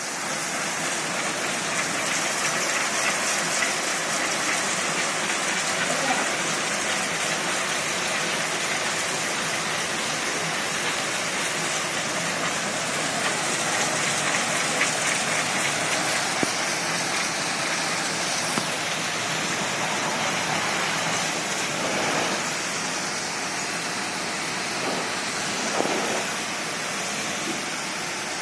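High-pressure washer pump spraying a steady jet of water, a continuous hiss of spray and splashing.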